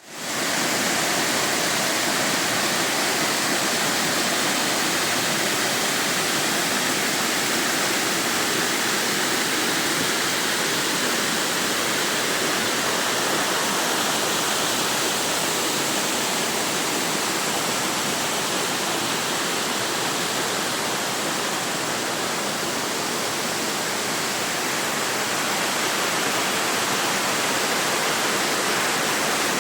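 Waterfall rushing: a steady, loud, even roar of falling water with no breaks.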